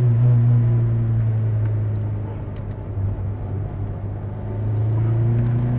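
Rear-mounted four-cylinder engine of a 1973 Alpine A110 1300 Berlinette rally car running in second gear just after a downshift. It holds a steady note, eases off about two seconds in, then builds revs again near the end.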